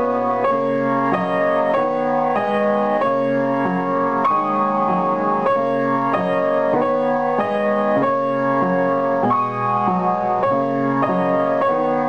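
Piano duet, four hands on one piano: a child and her teacher playing a flowing piece, notes and chords changing in an even rhythm about twice a second.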